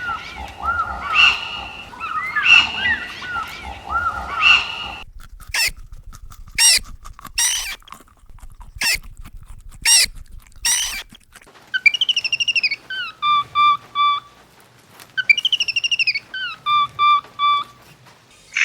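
Birds calling: first a dense chorus of chirps and short whistles, then a few sharp looping calls spaced about a second apart, then a descending whistled phrase that ends in a row of short even notes, given twice.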